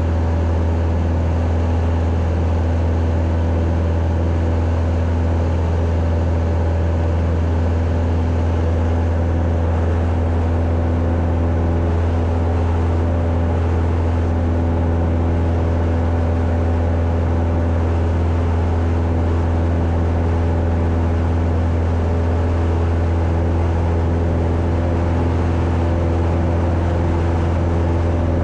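Cessna 172's piston engine and propeller running steadily, a constant deep drone with a few steady tones above it and no change in pitch.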